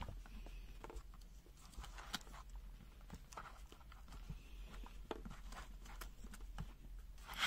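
Faint handling noise of multimeters and test leads: scattered small clicks and taps of plastic and probe tips on a rubber work mat, with a sharper click near the end, over a steady low hum.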